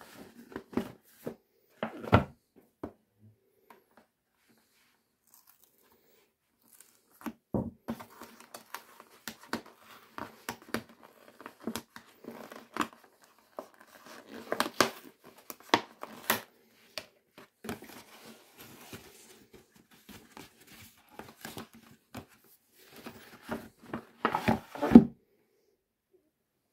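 Cardboard and paper packaging being handled and torn open by hand: scattered rustling, crinkling and tearing in irregular bursts, with a pause of a few seconds near the start and the loudest burst near the end.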